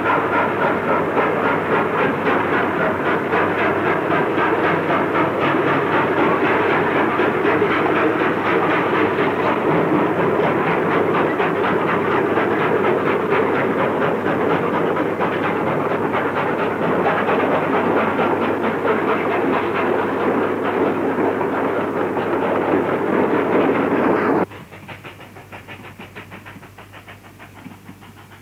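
New South Wales 38 class 4-6-2 Pacific steam locomotive running with its express train: a loud, steady, dense train sound with a fast even rhythm. About 24 seconds in it cuts off suddenly, leaving a much quieter sound.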